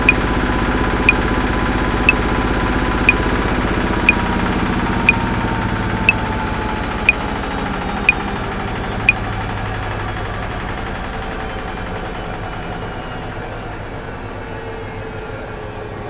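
Top-loading washing machine running steadily, its whine slowly falling in pitch and getting quieter. Over it a metronome clicks once a second at 60 bpm, ten clicks, then stops about nine seconds in.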